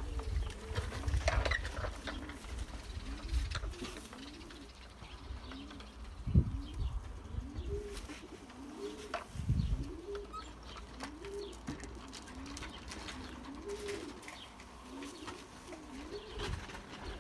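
Domestic racing pigeons cooing over and over, one low call after another, with a few dull low bumps, the loudest about six seconds in.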